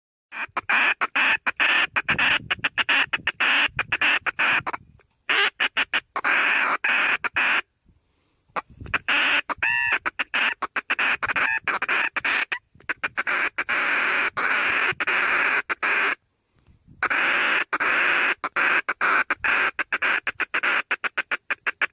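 Ducks calling in a dense, choppy stream of squawks and quacks, broken by short pauses, with one longer drawn-out call near the middle.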